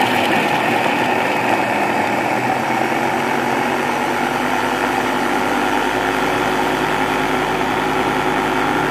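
Electric bowl chopper's motor running steadily at full speed, its blades mincing sliced onions and green chillies.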